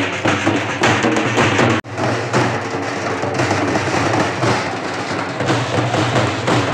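Halgi frame drums beaten with sticks in a fast, dense rhythm. The sound cuts out for an instant about two seconds in.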